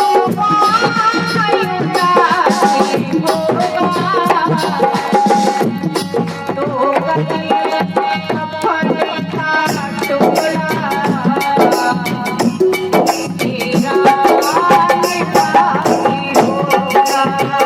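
Indian devotional song music: a melody that glides up and down over tabla and rattling percussion keeping a steady beat.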